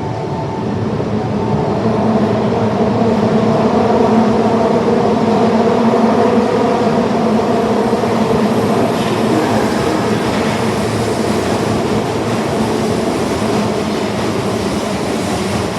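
Tanimachi Line subway train running, its noise growing louder over the first few seconds and then holding steady.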